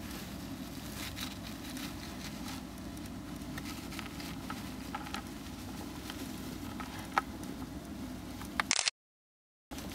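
Syrian hamster digging and pushing through shredded paper bedding: faint, scattered rustles and small crackles over a steady low hum. A short louder crackle near the end, then the sound cuts to dead silence for under a second.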